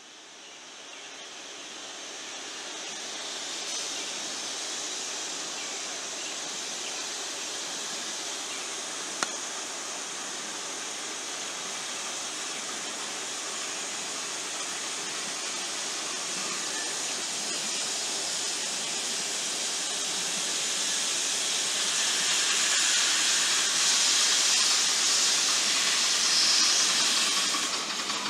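Steady steam hiss from a live-steam locomotive, growing louder in the second half as the approaching engine draws near. A single sharp click about nine seconds in.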